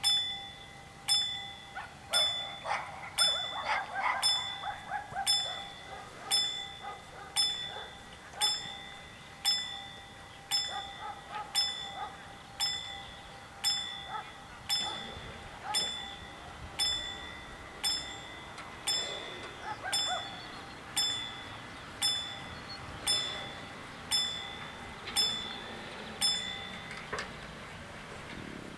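WSSB level crossing warning bells striking about once a second with a clear ringing tone, warning that a train is coming while the barriers lower. They stop near the end, once the barriers are down.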